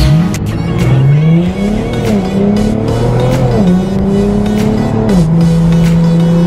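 Nissan 370Z's V6 engine accelerating hard through the gears: revs climb and drop sharply at about three upshifts, then hold steady. Music with a steady beat plays alongside.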